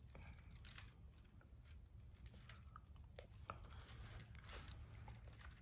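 Near silence broken by a scattering of faint, irregular clicks: small plastic N-scale Kato Bethgon coal cars being handled and pushed together on the track as their couplers are worked to engage.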